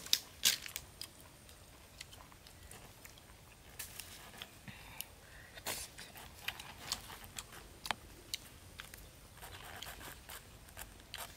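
A man eating boiled snails by hand: irregular small clicks and cracks of the shells being handled and picked open, with eating sounds at the mouth.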